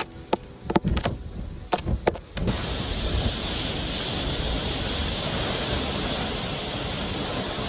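A few sharp knocks, then typhoon storm noise that starts suddenly about two and a half seconds in and holds as a steady, even rush.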